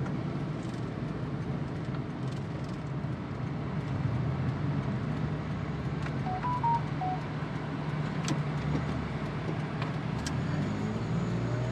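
A Suzuki Every Wagon's small three-cylinder engine and its road noise, a steady drone heard from inside the van as it drives along. A few short beeps come a little after six seconds in.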